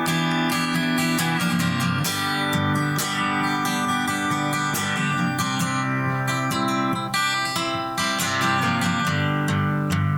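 Acoustic guitar strumming chords in a steady rhythm: the instrumental intro of a song.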